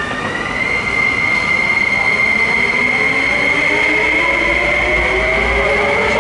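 SP-1900 electric multiple unit pulling away from rest, its traction equipment whining. A high tone rises and settles about a second in, while several lower tones climb steadily in pitch as the train gathers speed, over a low rumble.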